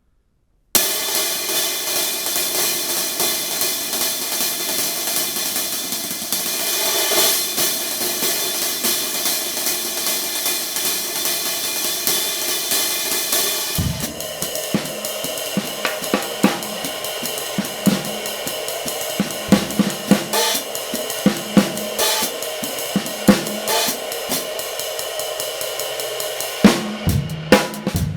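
A pair of 16-inch paper-thin B20 bronze hi-hat cymbals played in a continuous fast wash. About halfway through, kick drum and snare join them in a drum-kit groove, with heavier hits near the end.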